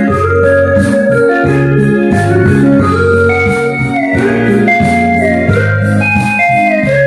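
Instrumental passage on an electronic organ-style keyboard with no voices: sustained chords that change every half second or so over a stepping bass line, accompanying a church choir that is waiting to come back in.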